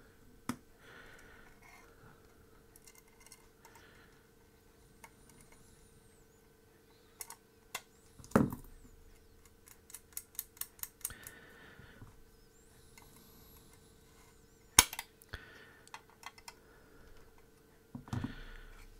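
Small metal clicks and taps as M3 nuts and screws are worked onto a printed-circuit-board antenna baseplate by hand and with pliers. A quick run of light clicks comes about halfway through, with sharper knocks just before and a few seconds after it, over a faint steady hum.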